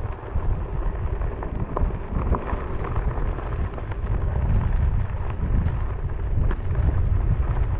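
Wind on the microphone and a steady, noisy low rumble with scattered small knocks as a one-wheeled electric board rides over a bumpy, rocky dirt road.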